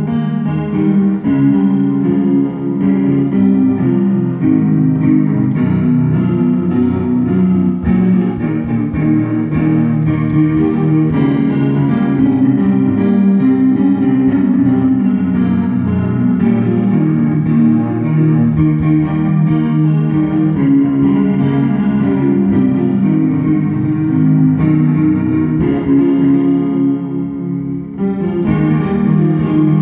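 Digital piano played continuously with both hands, a dense run of notes centred in the low-middle range, with a brief letup near the end before the playing picks up again.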